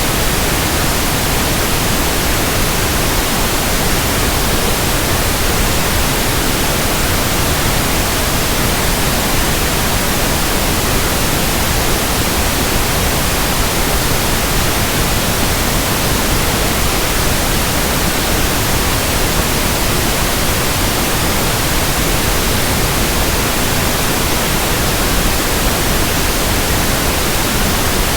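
Steady pink noise: an even, unchanging hiss spread across all pitches with no variation.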